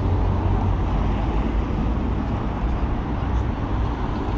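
Steady city traffic noise heard while cycling along a road, with wind rumbling on the microphone.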